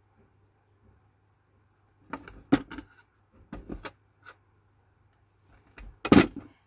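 Fruit being handled and set down on a metal tray: a few short knocks and rattles two to four seconds in, then the loudest clatter about six seconds in.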